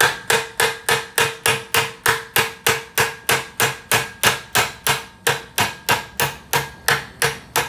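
Hammer striking a pin punch in quick, even blows, about three or four a second, each with a short metallic ring. It is driving a 7/32 roll pin out of the transmission's shift shaft.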